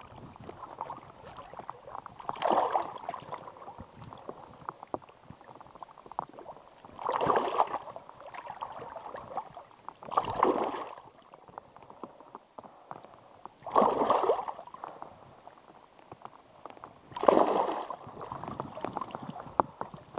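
River water sloshing and splashing around hands holding an Atlantic salmon in the current for release: five splashy surges, about three to four seconds apart, with a quieter steady water sound between them.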